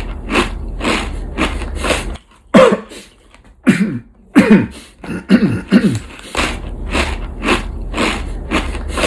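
A man chewing food loudly with a crunch about twice a second, breaking off about two seconds in to clear his throat several times with gravelly, falling 'ahem' grunts, then going back to the loud chewing.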